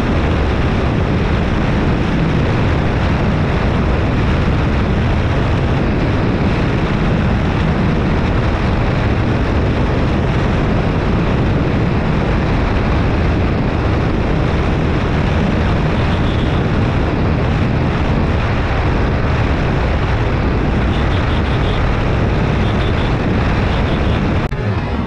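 Yamaha R15 V3's 155 cc single-cylinder engine running steadily at highway cruising speed, around 130 km/h, mixed with a constant loud rush of wind over the rider-mounted microphone.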